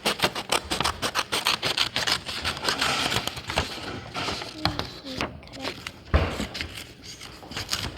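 Paper being handled: rapid clicks and short scrapes, with a few murmured words.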